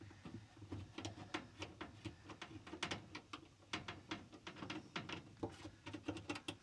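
Screws being turned out of a dryer's sheet-metal lint trap duct: a run of faint, quick, irregular small clicks and ticks, several a second.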